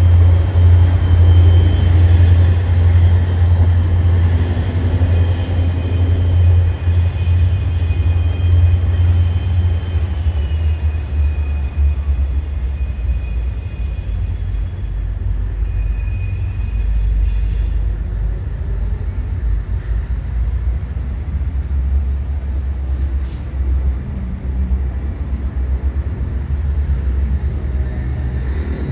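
Steady low rumble of a freight train in the rail yard, with a faint high whine that drops away about ten seconds in.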